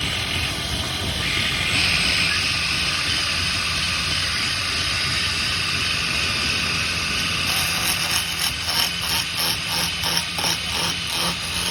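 A steady hissing machine noise, joined about seven and a half seconds in by a rhythmic run of short strokes.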